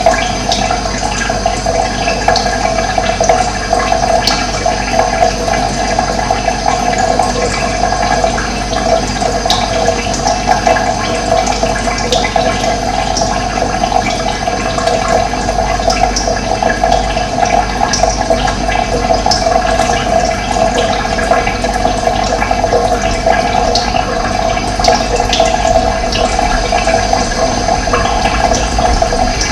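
Steady rush of running water, with scattered short, faint bird chirps over it.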